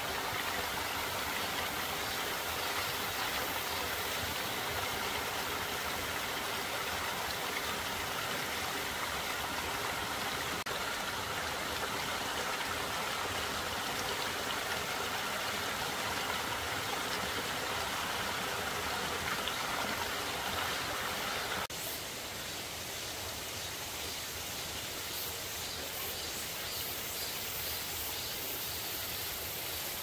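A stream running steadily over stones, a continuous rush of water. About 22 seconds in the sound drops slightly in level and changes to a softer, different flow.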